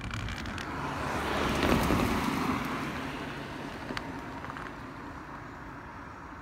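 A road vehicle driving past: its noise swells to a peak about two seconds in, then fades away.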